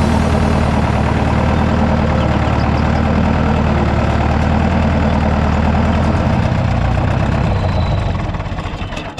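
Tractor engine running steadily at a low idle, its sound falling away near the end.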